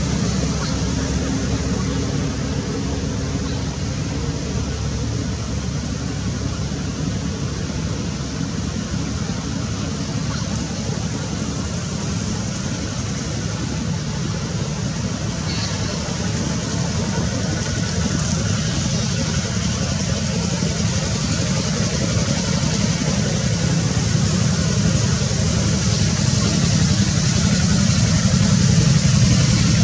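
Steady low rumbling noise that holds throughout and grows slightly louder near the end.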